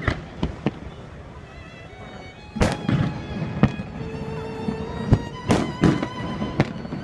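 Fireworks going off in a string of sharp bangs at uneven intervals, a few in the first second and then several louder ones from about two and a half seconds in, with music playing underneath.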